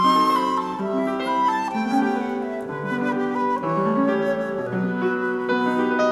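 Instrumental music: a grand piano playing chords and running notes, with a held melody line over it that slides between pitches like a flute.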